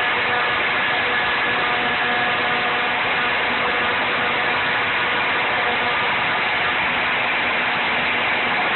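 Homemade CNC router's spindle running steadily while a 60-degree drill-mill V-carves aluminum: an even noise with a few faint steady tones in it.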